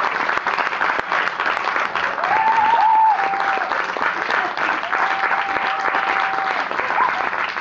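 Theatre audience applauding steadily at a curtain call, with a few long high calls over the clapping.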